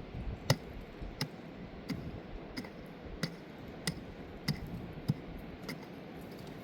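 A series of sharp, evenly spaced knocks or taps, about three every two seconds, over a steady background hiss.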